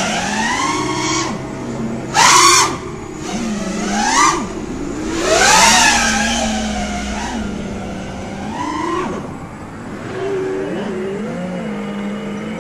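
FPV quadcopter's brushless motors (Emax RSII 2306 2400kv) whining, the pitch sweeping up and down with throttle. The loudest full-throttle punches come about two seconds and five and a half seconds in.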